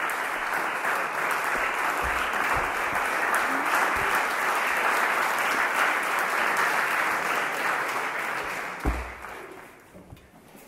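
Audience applauding steadily, the clapping fading away near the end, with a single low thump as it dies down.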